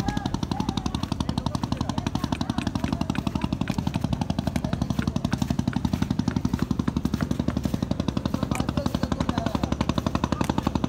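A river boat's engine running steadily, with a rapid, even chugging.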